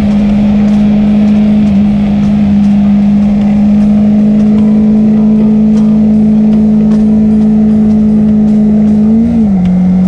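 Suzuki SV650's V-twin engine running steadily at freeway cruising speed, with wind noise on the microphone; near the end its pitch briefly rises and then settles slightly lower.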